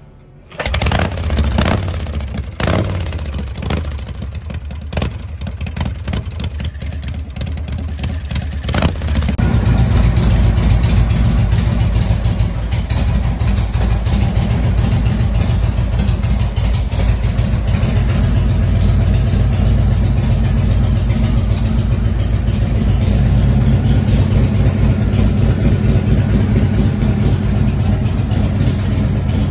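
A custom chopper's motorcycle engine starting and being revved in sharp throttle blips, then, about nine seconds in, a second vintage motorcycle engine running steadily at a fast idle.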